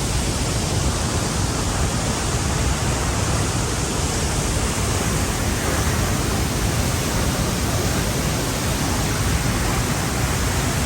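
A powerful waterfall swollen by recent storm rain: a loud, steady rush of falling water.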